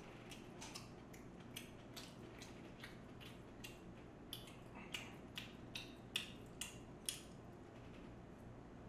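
Close-up eating sounds: chopsticks picking rice off a plate and chewing with small wet mouth clicks, heard as a string of short clicks that come faster and louder after the middle.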